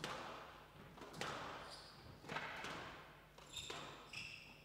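Squash rally: the ball cracks off rackets and the walls about once a second, each hit echoing briefly around the glass-walled court. Short high squeaks of court shoes on the wooden floor come between the hits.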